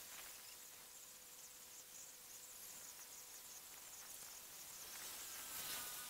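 Faint outdoor ambience of insects chirring, a steady high-pitched hiss.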